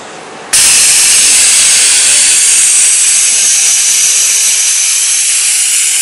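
Compressed air hissing loudly and steadily from a robot work cell's pneumatics, starting abruptly about half a second in.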